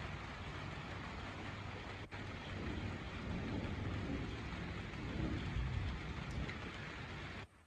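Heavy rain hissing steadily, with a low rumble underneath through the middle. It starts suddenly and cuts off just as suddenly near the end.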